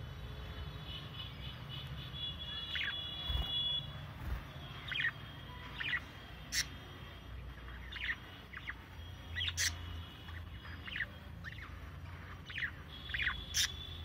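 Budgerigars chirping: short, sharp chirps every second or so, with a few brief warbled notes.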